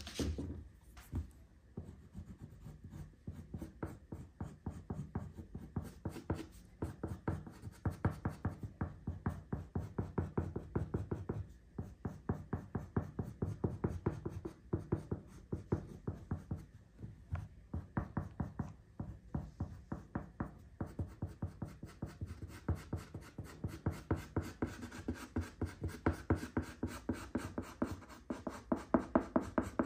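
Oil pastel scratching back and forth on paper on a wooden table in quick, even coloring strokes, about four or five a second, with short pauses. A couple of knocks sound at the start as a stick is picked from the plastic tray.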